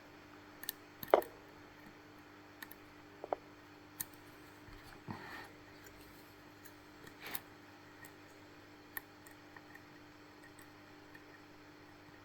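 Lock picks working inside a JIS 5200 lock with two rows of pins: scattered small sharp clicks and ticks, the loudest about a second in, and a soft scrape near the middle. A faint steady hum lies underneath.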